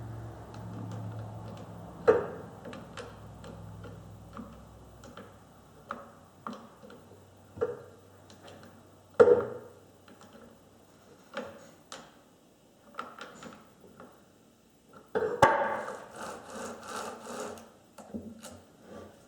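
Chainsaw parts and hand tools being handled while the saw is reassembled: scattered clicks and knocks, then a quick run of scraping strokes for about two seconds near the end. A low steady hum dies away about five seconds in.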